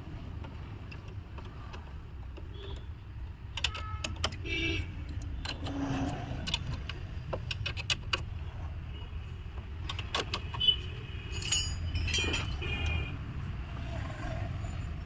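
Metal clinking and jingling: many short metallic strikes and rings, most of them after about three and a half seconds, over a steady low rumble.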